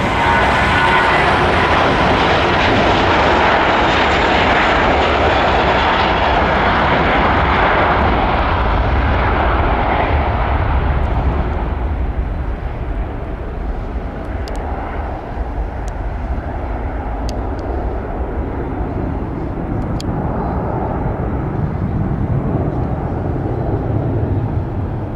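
Airbus A321 jet engines at takeoff thrust as the airliner rolls down the runway and lifts off. The roar is loudest for the first ten seconds or so, then fades to a lower rumble as the aircraft climbs away.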